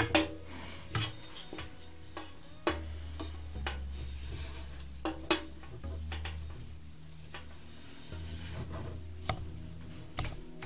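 Thin rope being handled and tied around a metal bar, its rubbing and swishing broken by a handful of sharp clicks and knocks, with soft background music under it.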